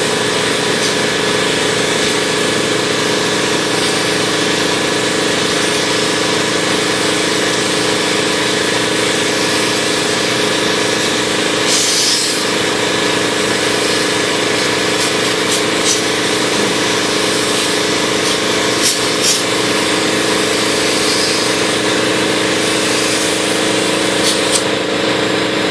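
Compressed-air gravity-feed paint spray gun hissing steadily as it sprays paint onto a car fender, over a steady mechanical hum.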